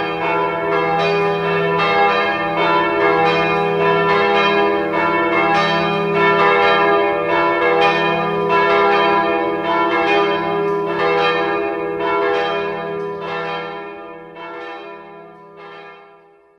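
Orthodox church bells ringing, many bells struck in quick succession over the steady hum of the larger bells. In the last few seconds the strikes thin out and the peal dies away.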